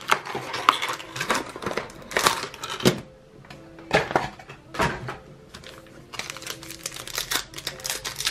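A sealed trading card box being unwrapped and opened by hand: irregular crackling of plastic wrap and sharp clicks and snaps of cardboard, louder crackles about 1 and 2 seconds in and again around 4 to 5 seconds.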